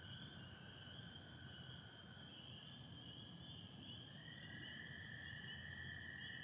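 Faint frog chorus of spring peepers and American toads: a continuous high band of peeper calls with the long, steady trill of American toads below it. The toad trill shifts slightly in pitch about four seconds in as one trill gives way to another.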